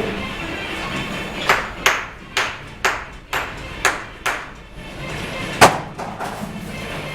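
A bricklaying tool striking cement bricks as they are set to the line: about eight sharp, ringing taps spread over a few seconds, the loudest near the end.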